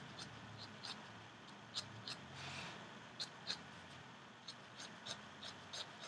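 Pen nib scratching on a paper card in quick, short, irregularly spaced strokes, each a brief scratch, with a softer, longer stroke about two and a half seconds in.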